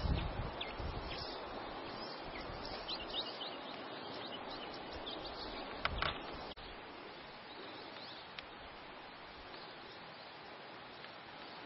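Outdoor ambience: small birds chirping in short high calls over a steady rushing hiss, the chirps thickest in the first half with a louder cluster near six seconds. About six and a half seconds in, the background drops abruptly to a quieter hiss with only the odd chirp.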